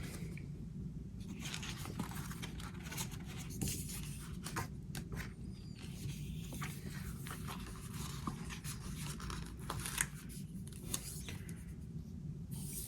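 Sticker sheets and planner paper rustling and crinkling as they are handled and searched through, with scattered short crackles, over a steady low hum.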